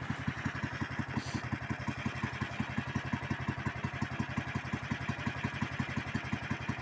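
Tracked motor pusher's small engine idling steadily, with about eight even pulses a second.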